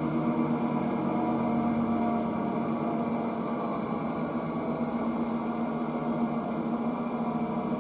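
Electrolux W465H washing machine running, a steady motor hum with a constant tone that holds level throughout.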